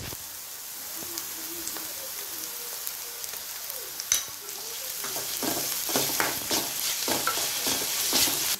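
Chopped onions and ginger-garlic paste sizzling steadily in hot oil in a metal kadai while they are sautéed. A metal ladle knocks once about four seconds in, then scrapes and stirs against the pan in repeated strokes from about five seconds on.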